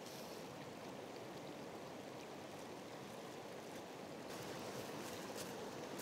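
Shallow stream flowing over rocks, a steady rushing, with a few faint crinkles of a plastic bag being handled.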